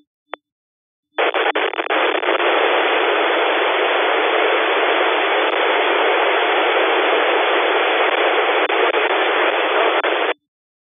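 Narrowband FM radio receiver static: a few brief squelch blips, then a steady hiss for about nine seconds that cuts off suddenly, the squelch opening on noise while no voice is on the 145.800 MHz ISS downlink.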